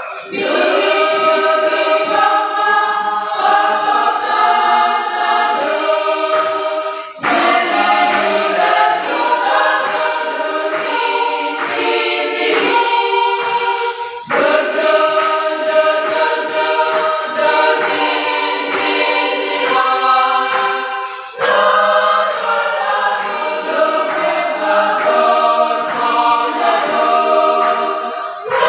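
Women's choir singing unaccompanied, practising a hymn tune in solfa syllables (do, re, mi). Four sustained phrases of about seven seconds each, with short breaks between them.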